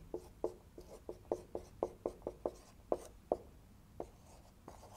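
Marker pen writing on a whiteboard: a quick run of short strokes and taps, about four a second, thinning out to two last taps near the end.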